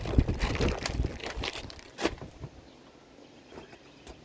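Plastic packaging rustling and crinkling as items are handled, busiest for the first two seconds with a sharper crackle, then a few faint crackles.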